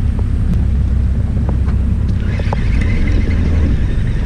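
Steady low rumble of wind on the microphone aboard a small fishing boat, with a few light clicks. About halfway through, a whirring joins in as the baitcasting reel is cranked.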